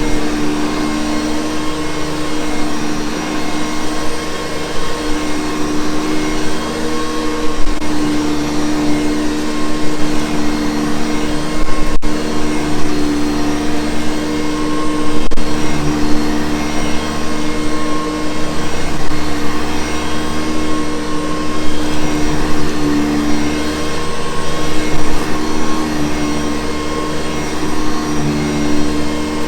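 Hoover Convertible U4387 upright vacuum cleaner running steadily, a loud continuous motor whine and airflow rush whose loudness swells slightly from moment to moment.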